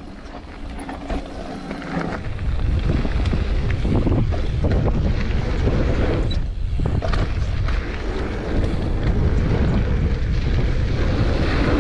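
Wind buffeting the microphone of a camera on a downhill mountain bike at speed, over the rush of knobby tyres on a dirt trail and the rattle and knocks of the bike over bumps. The rush gets much louder about two seconds in as the bike picks up speed, and drops briefly a little past halfway.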